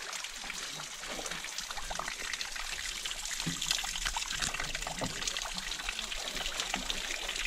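A small seep or trickle of water running down a mossy rock face and splashing into a shallow pool: a steady patter of drips and splashes.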